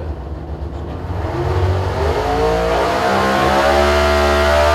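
500-cubic-inch NHRA Pro Stock V8 running on a water brake dyno during a pull: it runs low at first, then from about a second in its pitch climbs steadily as the revs rise under load. It is heard from the dyno control room.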